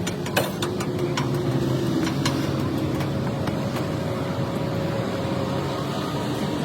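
A steady engine-like mechanical drone, with a few sharp clicks or knocks.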